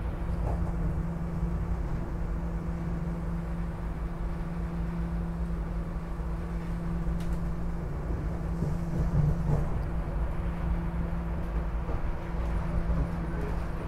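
SEPTA Regional Rail electric train running, heard from inside the passenger car: a steady low rumble of wheels on track with a constant hum through it.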